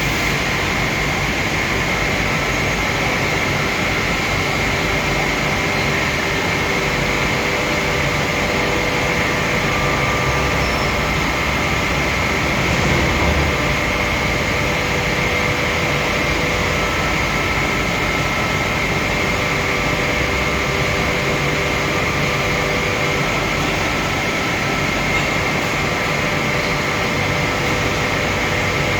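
A machine running steadily: an even noise with a few faint steady whining tones through it and a brief swell about halfway.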